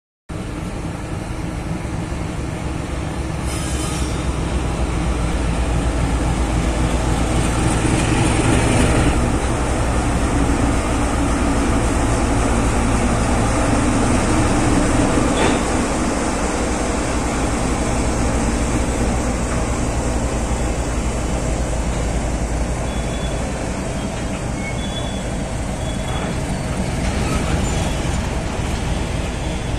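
Freight train passing close by, hauled by a diesel locomotive: the engine's deep drone, then the steady clatter and rolling of covered goods wagons over the rails. Brief high wheel squeals come near the end.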